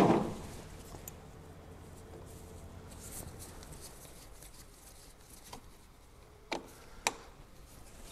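Screwdriver fitting the small retaining screws into a steel brake drum: a single knock at the start, then a few faint, sharp metal clicks spread out over the following seconds.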